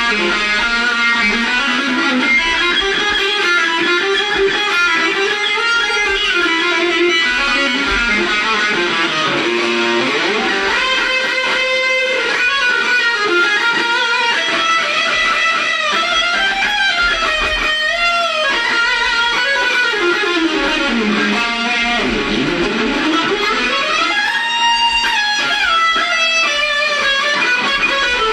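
Electric guitar playing a continuous lead line with bent and sliding notes, including a long slide down and back up about three-quarters of the way through.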